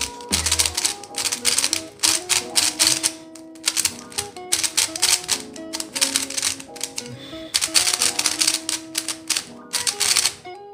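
New out-of-the-box YuXin Little Magic M magnetic 3x3 speed cube being turned fast, its plastic layers clicking in rapid runs of moves with brief pauses. Background music plays underneath.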